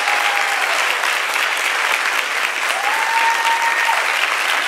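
Audience and on-stage contestants applauding steadily, many hands clapping at once. A single held tone rises above the clapping for about a second, around three seconds in.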